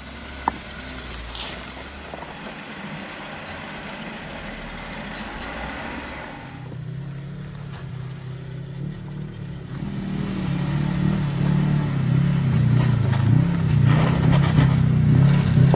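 Jeep Wrangler JK Rubicon's 3.6-litre V6 engine running at low revs as it crawls up a rocky trail. It comes in about halfway through and grows louder, with a few light knocks near the end, after several seconds of only faint background noise.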